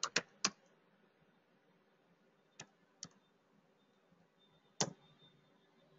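A few computer keyboard keystrokes: three quick taps at the start, then three single taps spread over the next few seconds.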